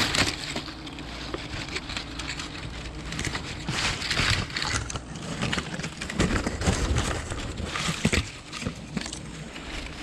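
Twigs, branches and dry leaves crackling and snapping in irregular bursts as brush is broken and pushed aside by hand.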